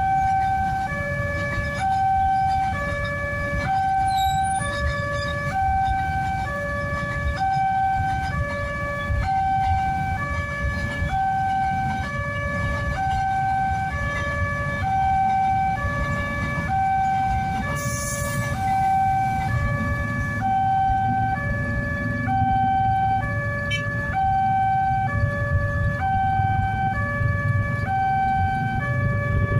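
Railway level-crossing warning alarm sounding a steady alternating two-tone, high-low about once a second, throughout. Underneath is a low rumble of a train passing over the crossing.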